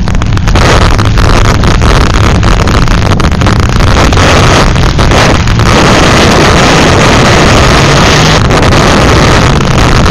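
Demolition derby cars' engines running hard, with heavy wind buffeting the microphone; the sound stays close to full level and overloaded.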